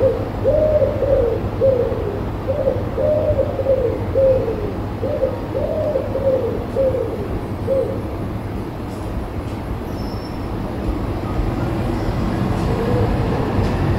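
A pigeon cooing: phrases of soft notes that rise and fall, repeated for most of the time and trailing off, with a couple of fainter coos near the end. A steady low rumble of town background lies underneath.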